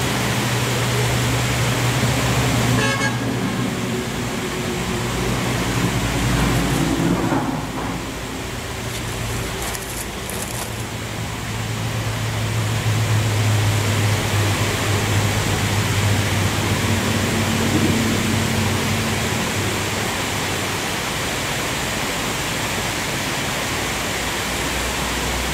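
A low, steady motor hum with a rushing noise over it, swelling and easing over several seconds.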